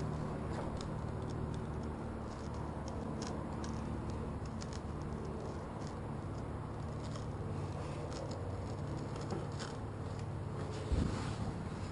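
Pipe knife being worked through the urethane bead around a truck's back window: faint scattered scraping and clicking, over a steady low hum, with a single thump about eleven seconds in.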